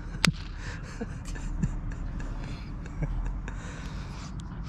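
A sharp knock about a quarter second in, then a few fainter knocks, over a steady low rumble. Typical of a hard block of pressed rapeseed-cake groundbait being struck and broken up by hand on concrete.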